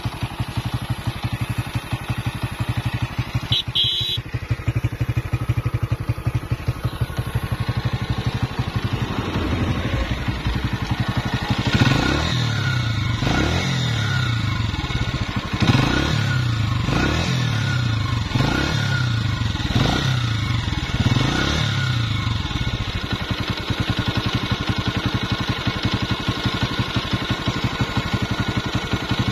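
Honda CG 125's air-cooled single-cylinder four-stroke engine idling, then revved in a string of quick throttle blips through the middle, and settling back to idle. The warm engine makes extra mechanical noise from inside, which the mechanic puts down to rocker-arm and tappet-arm pins worn on one side, even though the tappet clearance checks out fine.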